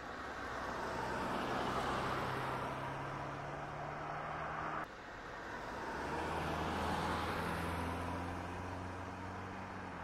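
Electric motors and gearboxes of a Huina remote-control excavator whirring as the upper body swings and the arm works, swelling and easing twice with a few steady low tones that shift in pitch. The sound breaks off abruptly just before halfway and picks up again.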